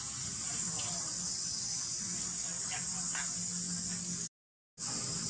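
Steady high-pitched drone of forest insects, which cuts out completely for about half a second near the end and then resumes.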